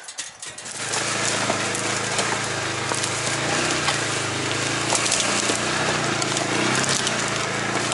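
Polaris side-by-side (UTV) engine running steadily as it drives, with scattered clicks and knocks over the top; it sets in about a second in.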